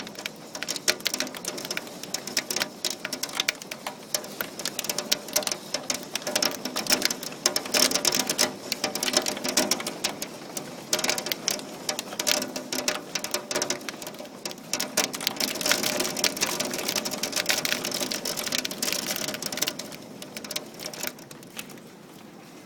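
Hailstones falling hard in a dense, rapid clatter of hits, easing off near the end.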